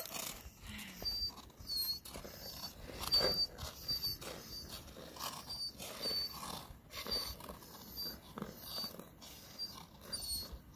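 A beagle whining over and over in short, high-pitched cries, the complaint of a dog left chained up.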